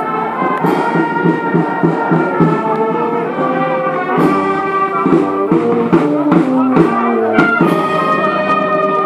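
Brass band music: a slow melody in long held notes, with drum strikes.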